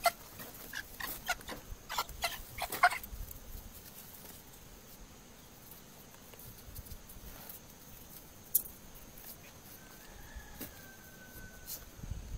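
A puppy and a hen scuffling on dirt: a quick run of short sharp sounds in the first three seconds, then mostly quiet, with a single click and a faint thin steady tone near the end.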